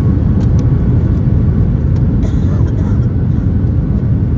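Steady, loud low rumble inside a Boeing 737 MAX 8's cabin: its CFM LEAP-1B jet engines and airflow.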